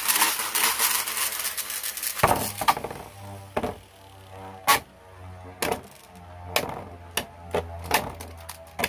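Infinity Nado spinning top launched from a pull-cord launcher: a loud whirring rush while the cord is pulled. About two seconds in, the released metal top spins in a plastic stadium bowl with a steady low hum and sharp clicks and knocks against the bowl.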